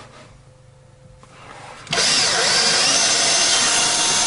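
Power drill starting up about two seconds in and then running steadily at speed with a high whine, drilling to mark the hole positions for the threaded rod.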